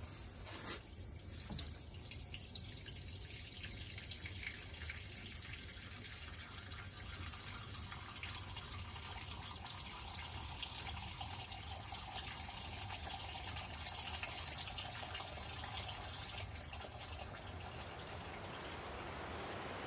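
Melted beeswax and water running in a thin stream from the outlet tap of a stainless steel wax melter into a plastic bucket: a steady trickle and splash that eases a little near the end.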